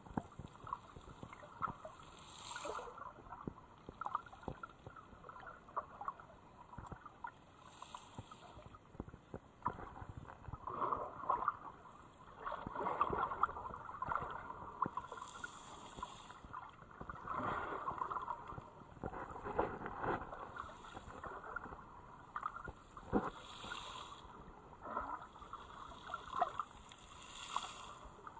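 Muffled water sloshing and gurgling around a camera held just below the surface in shallow sea water, swelling and fading every few seconds, with scattered small clicks.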